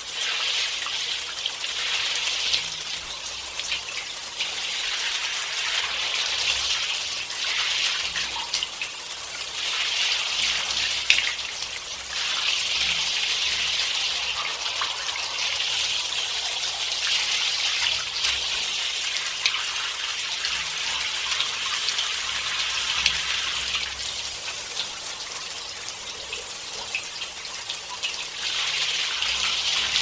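Shower running: a steady hiss of spraying water that swells and eases every few seconds, with a few sharper splashes.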